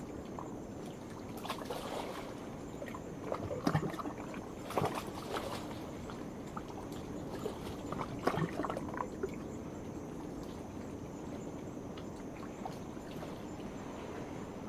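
Small waves washing and splashing against a rocky shore in several bursts of sloshing, over a steady wash of water. A continuous high-pitched drone of night insects runs underneath.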